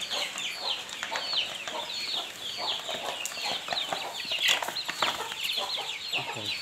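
A flock of young chicks peeping nonstop: many short, high, falling peeps, several a second and overlapping.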